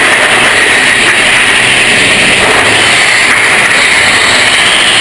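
Big Thunder Mountain Railroad mine-train roller coaster running along its track: a loud, steady rush of wheel and track noise and moving air.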